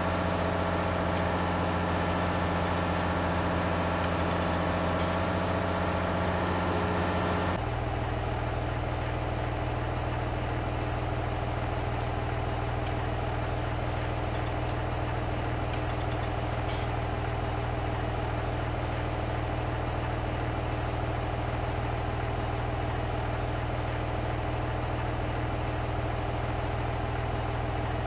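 Steady idling of a heavy vehicle engine, a sound effect laid over the toy tractor. About seven and a half seconds in it cuts abruptly to a different, lower-pitched idling engine that runs on unchanged.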